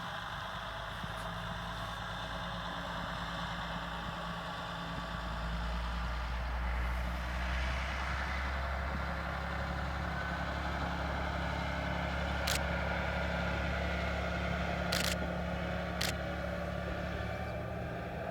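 KiHa 120 diesel railcar's engine running with a steady low hum, which grows louder and deeper about five seconds in. A few sharp clicks come near the end.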